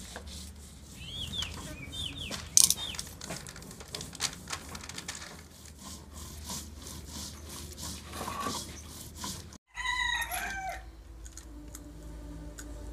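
A rooster crows once, about ten seconds in. Before it come scattered clicks and knocks with short high chirps of small birds.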